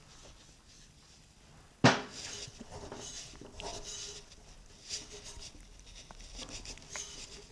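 Air cleaner being fitted onto the carburetor of a 1944 Briggs & Stratton Model B engine: one sharp knock about two seconds in, then scraping and small clinks as it is pushed and twisted into place.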